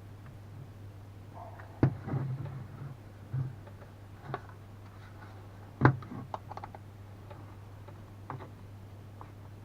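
Sharp clicks and knocks of a power bank's plastic case being handled and pried at its snap latches, two louder knocks about two and six seconds in, with lighter scattered ticks between.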